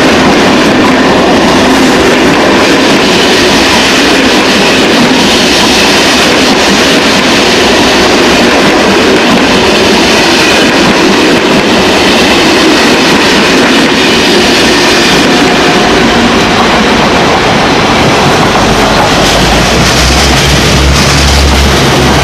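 Loco-hauled Corail passenger coaches rolling past at speed, a steady loud rumble of wheels on the rails with clickety-clack. In the last few seconds a low steady drone grows as a regional multiple unit approaches on the next track.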